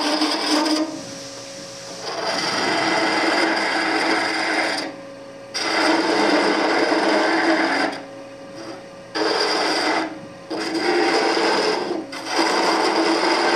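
Wood lathe spinning a pale wood blank while a gouge hollows its end grain: a rasping cutting noise in about six passes, with short breaks where only the lathe's steady hum is left.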